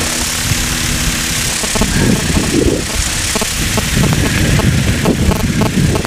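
Light aircraft's engine idling as it taxis after landing, with gusty wind rumbling on the microphone.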